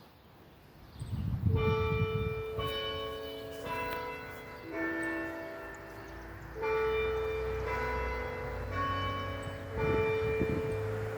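Church bells start ringing about a second and a half in: several bells of different pitch struck one after another, roughly one a second, each note ringing on under the next.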